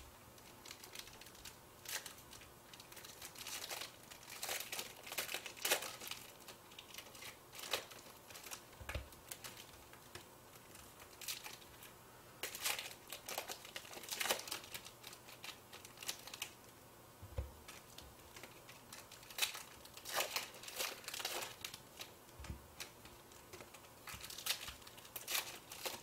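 Foil trading-card pack wrappers being torn open and crinkled by hand, in irregular crackling spurts, with a few soft knocks.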